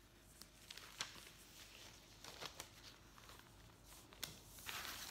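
Faint rustling and a few soft ticks as a painted cotton tote bag is handled and lifted off newspaper, with a longer rustle near the end.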